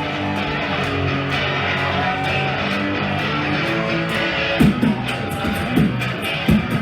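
Instrumental break of a live pop song over a concert sound system: held melodic notes, with a thumping drum beat coming in about two-thirds of the way through.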